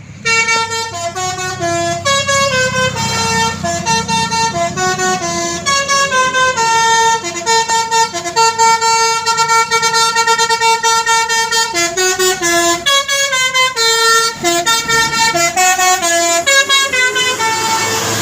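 A bus's Basuri 'telolet' musical horn playing a melody: a quick run of stepping notes with short breaks, stopping near the end, over a low rumble.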